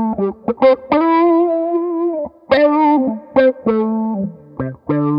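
Electric guitar played through a SolidGoldFX Supa Funk envelope filter: short, sharply plucked funk notes with one note held for about a second, its tone shifting as the filter sweeps.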